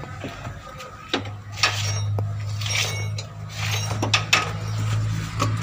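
Hand tools clinking and knocking against metal on the underside of a van, a series of sharp clicks spread over the few seconds, over a steady low hum that gets louder about a second in.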